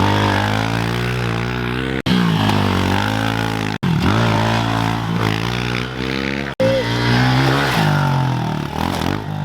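Pit bike engine revving and easing off repeatedly while being ridden, its pitch rising and falling, with three abrupt breaks where the sound cuts off and resumes.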